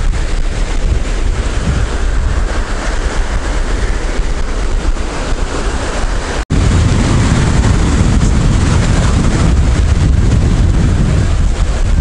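Stormy sea surf breaking on the beach, with strong wind buffeting the microphone. The sound cuts out for an instant about six and a half seconds in, then resumes.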